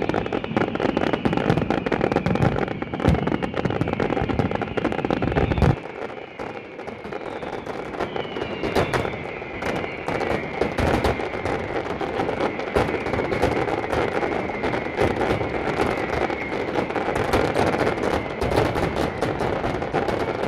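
Fireworks finale: aerial shells bursting in rapid, dense succession with continuous bangs and crackling. There is a brief lull about six seconds in, then the barrage builds back up.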